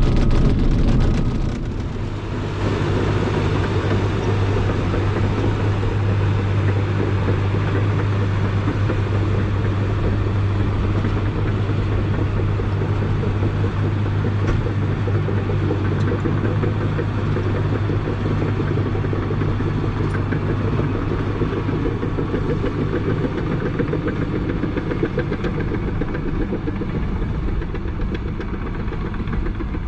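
Caterpillar D5 bulldozer's diesel engine running steadily under load as it pushes dirt, a deep, even drone. It is louder and rougher for the first couple of seconds, then settles.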